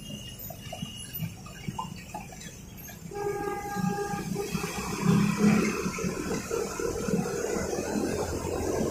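Motorcycle ride through city traffic on a wet road: the rumble of engines and tyres, growing louder in the second half. A vehicle horn sounds once, for about a second and a half, about three seconds in.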